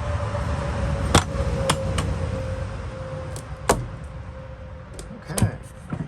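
Hard tools and small parts being handled and set down: a run of sharp clicks and clunks, half a dozen in all, over a low rumble, with a faint steady tone that fades out about five seconds in.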